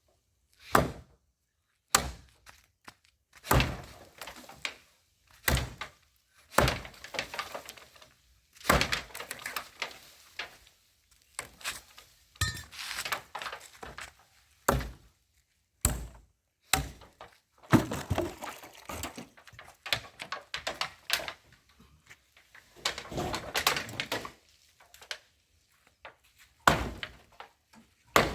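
Hammer blows knocking down the walls of a pit latrine, repeated at irregular intervals of about one to two seconds. Some blows are followed by a longer clatter of breaking, falling material.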